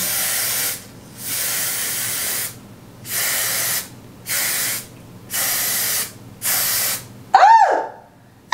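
An aerosol can of got2b Glued freeze spray hissing in six short bursts as it is sprayed onto a wig cap. Near the end there is a short, high sound that rises and falls in pitch.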